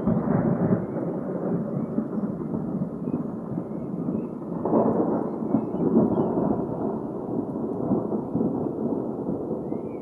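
Rolling thunder, a continuous low rumble that swells loudest at the start and again about five seconds in.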